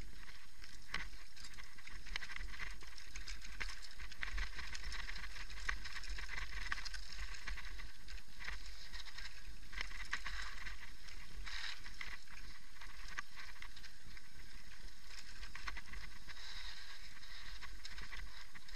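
Mountain bike descending a rocky dirt trail: tyres crunching over gravel and stones, with frequent sharp clicks and knocks as the bike hits rocks. Under it runs a steady low rumble of wind on the microphone.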